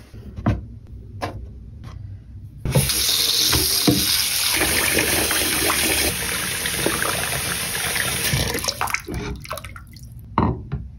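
Bathroom tap running hot water into a stone shaving bowl as a shaving brush is soaked in it: warming the bowl and wetting the bristles before lathering. It runs as a steady rush for about six seconds, with a few knocks before it. Once the tap is off, the stone bowl clunks against the sink as it is tipped and emptied.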